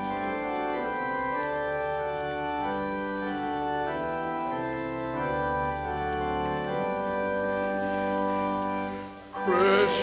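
Church organ playing slow, held chords as the introduction to a choir anthem. Near the end it breaks off briefly and the choir comes in singing.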